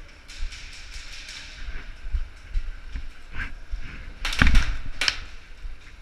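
Footsteps and gear handling of a player on the move, with knocks on the worn camera. A quick run of sharp clicks comes about a second in, and two loud knocks come a little after four seconds.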